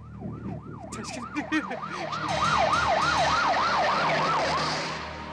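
Emergency-vehicle siren in a fast yelp, its pitch sweeping up and down about three times a second. It grows louder about two seconds in, with a rushing hiss under it, then fades near the end. A few short clicks come about a second and a half in.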